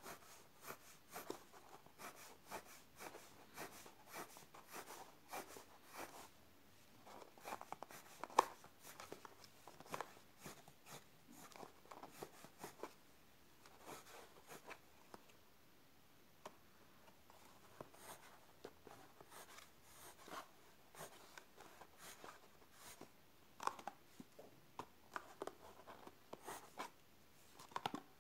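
Coloured pencil scratching on paper in quick back-and-forth strokes while shading, with a short pause about halfway through.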